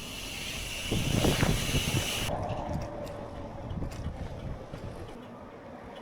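Strong wind buffeting the microphone of an action camera on a moving bicycle, loudest in gusts about a second in. A high hiss cuts off a little over two seconds in, leaving lighter wind rumble with a few faint clicks.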